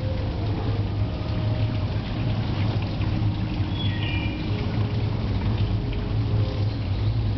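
Steady low hum under an even rushing noise like running water, the ambience of an indoor butterfly conservatory with a small pool, with a couple of short high chirps midway.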